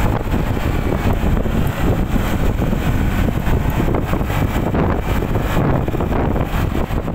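Steady rush of wind and road noise on the microphone of a motor scooter riding at speed, with no clear engine note above it.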